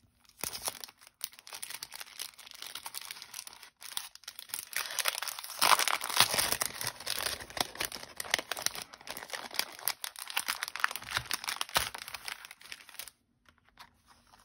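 Clear plastic packaging crinkling and crackling as a pack of die-cut paper ephemera is pulled open and the pieces are handled. It is loudest about six seconds in and stops a little over a second before the end.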